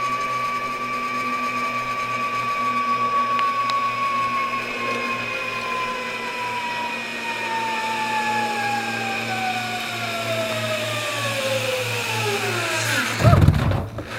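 Zip line trolley pulleys running along the steel cable: a steady high whine that falls steadily in pitch over the second half as the rider slows, ending in a few loud knocks near the end.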